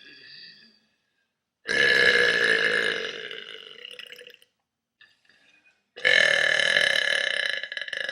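A person burping: two long, drawn-out burps of two to three seconds each, about four seconds apart, after the fading end of a quieter one at the very start.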